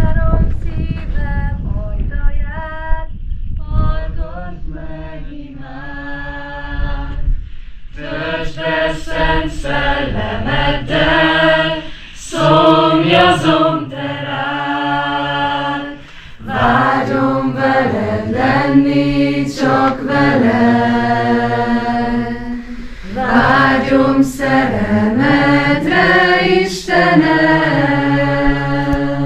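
A group of voices singing a worship song together, unaccompanied. The singing is thinner at first and grows fuller from about eight seconds in. There is a bump and some low handling rumble at the very start.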